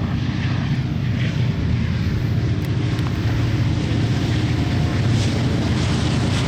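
Union Pacific diesel-electric freight locomotive's engine working hard with a train in tow, a loud, steady low rumble; the black exhaust it is putting out is the sign of it running near full throttle under heavy load.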